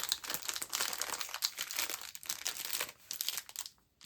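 Packaging crinkling and rustling as items are handled, dying away near the end.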